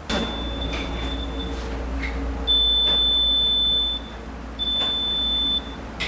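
Digital multimeter's continuity buzzer beeping three times with a steady high tone, each for a second or so, as the test probes touch a dryer thermostat's terminals. The beep means the thermostat's contacts are closed and conducting.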